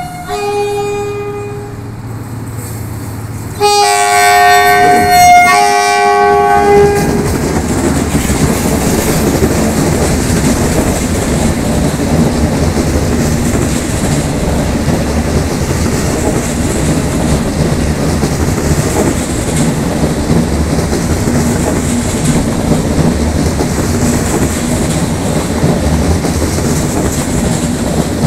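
Ouigo double-deck high-speed train sounding its horn: a brief note, then a louder blast about four seconds in, broken into two parts. Then the steady rumble and clickety-clack of the train rolling past at close range.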